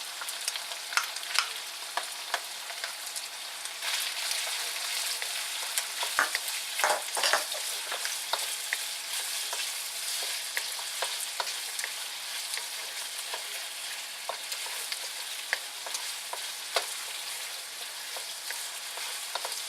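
Chicken, onions and garlic sizzling in sesame oil in a hot pan, stirred with a utensil that scrapes and clicks against the pan.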